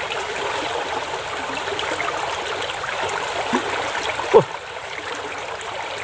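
Shallow stream water flowing and rippling steadily past a muddy bank. Two short chirps sliding down in pitch break in about three and a half and four and a half seconds in, the second louder.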